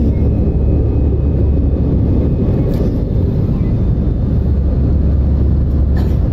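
Steady cabin noise of an Airbus airliner in flight: jet engine and airflow noise heard inside the cabin, heaviest in a deep low rumble.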